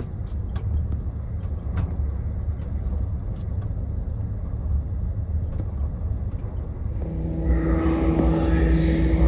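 Low, steady road rumble heard from inside a moving vehicle, with a few faint clicks. About seven seconds in, a steady droning hum with a held low tone takes over: ship's machinery on a ferry's vehicle deck.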